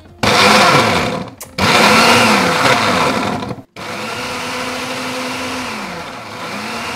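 Electric mixer grinder pulsed twice, chopping frozen strawberry and banana pieces in the jar: a short burst, then a longer one with the motor pitch rising and falling. About four seconds in it settles into a steadier, quieter run.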